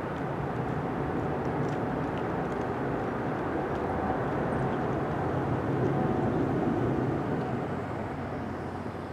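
Jet noise of a twin-engine Boeing 777-300 climbing away after takeoff, heard from the ground: a steady, deep rumble that builds a little to its loudest about six to seven seconds in and then begins to fade.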